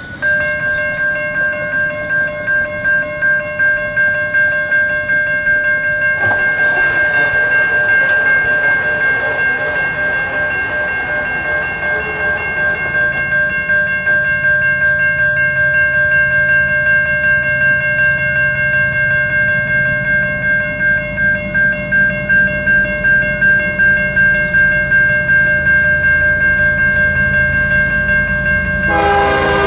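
Railway level-crossing bell ringing steadily in a regular pulse as the crossing signals activate for an approaching train. Near the end, the approaching Canadian Pacific freight locomotive's horn starts to sound.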